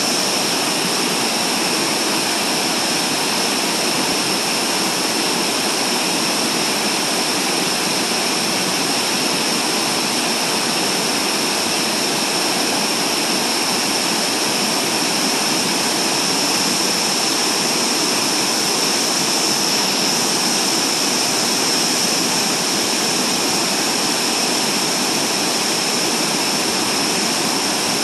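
Tall waterfall in heavy flow, pouring down stepped rock ledges into a pool: a loud, steady rush of falling water.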